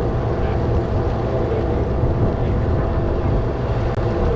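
Boat engine running with a steady drone, with wind buffeting the microphone.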